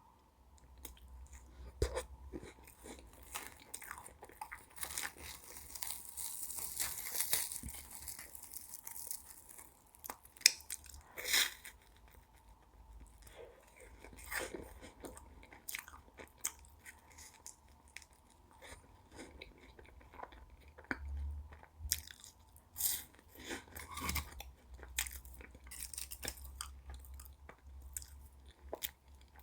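Close-up eating sounds: crunchy bites and chewing of Pavlova meringue cake, with many short crackles and wet mouth clicks, including a longer stretch of crackling crunch several seconds in.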